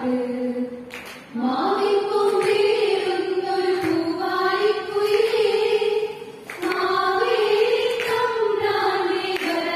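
A group of women singing together in unison into microphones, with long held notes; the singing breaks briefly about a second in and again about six and a half seconds in.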